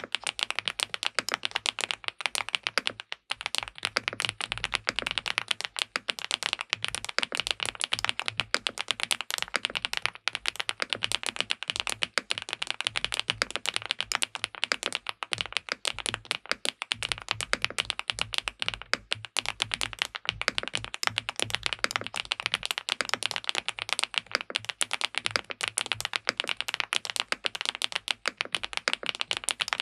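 Fast, continuous typing on an SPM PL87W (Mongdol 87) tenkeyless mechanical keyboard with linear switches on a polycarbonate plate: a dense run of keystroke clacks, with a brief pause about three seconds in.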